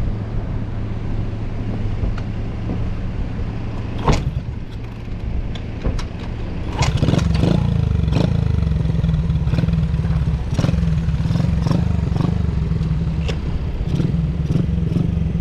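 Honda Monkey minibike with a Kitaco 75cc bore-up single-cylinder four-stroke engine and Takegawa Z muffler, running steadily. About seven seconds in it gets louder and higher in pitch as it accelerates, with scattered sharp clicks and knocks along the way.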